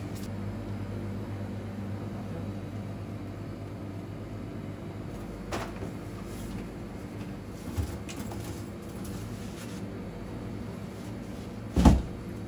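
Steady hum of ultra-low-temperature freezers running. A faint click comes midway and a light knock a little later. Near the end there is a short, loud thump of a freezer door being handled.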